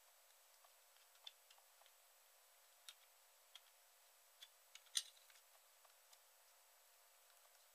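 Faint scattered clicks and light taps of the Philips RQ1290 electric shaver's plastic parts being handled, with one sharper click about five seconds in.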